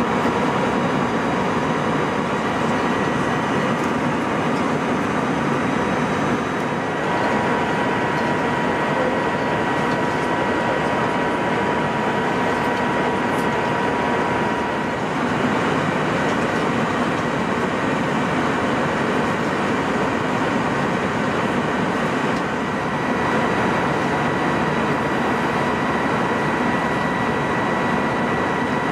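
Airbus A321 cabin noise in cruise: a steady rush of engine and airflow noise, with faint steady high-pitched whine tones running through it.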